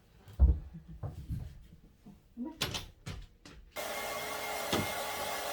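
A few knocks and bumps of handling, then an electric dryer for drying the dogs is switched on about three-quarters of the way through and blows steadily with a constant whine.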